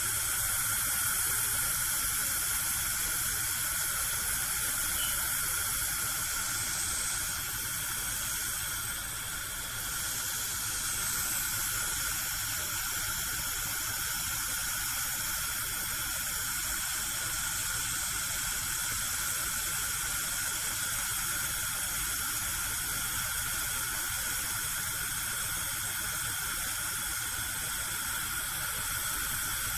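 Gas cooker burner alight, its flame giving a steady hiss that dips slightly about eight seconds in.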